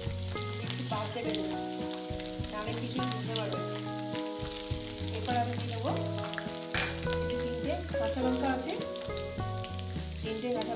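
Mustard oil sizzling and crackling in a wok with dry red chillies, black cumin and garlic frying in it, over steady background instrumental music with held notes.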